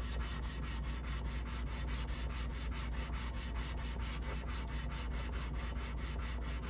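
Leather splitter blade being rubbed flat on sandpaper: a steady abrasive scraping in a quick, even rhythm of strokes.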